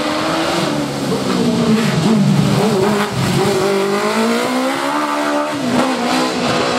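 Motorbike-engined hill climb race car accelerating hard, its high-revving engine note climbing and falling. The pitch drops sharply about three seconds in and again about five and a half seconds in, then climbs again.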